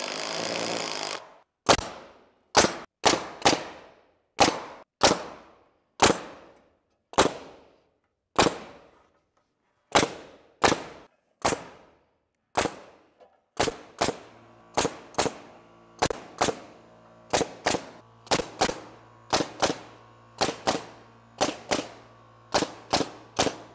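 A cordless impact driver runs a screw in for about a second at the start. It is followed by a long series of sharp single knocks, one every half second to a second, each ringing away briefly. A low steady hum joins after about 14 seconds.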